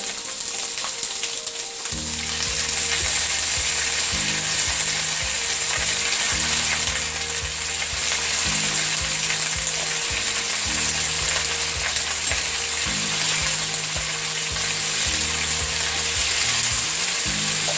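Raw jackfruit pieces and potato chunks sizzling as they fry in hot mustard oil in a wok, a steady hiss. Low background music runs underneath from about two seconds in.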